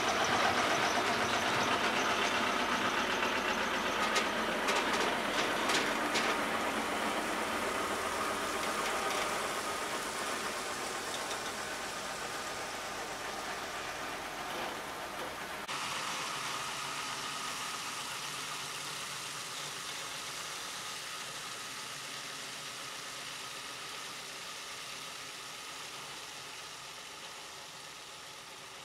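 Heavy-haulage truck's diesel engine running as it hauls a multi-axle low-loader trailer past, fading as it draws away, with a few sharp clicks or clanks about four to six seconds in.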